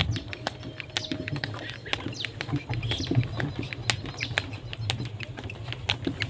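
Wooden bullock cart rolling along a road: an irregular run of clicks and knocks from the wooden frame and wheels over a low rumble. Faint bird chirps come now and then.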